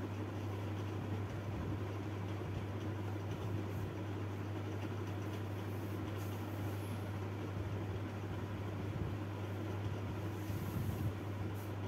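A steady low hum under an even, constant hiss, unchanging throughout.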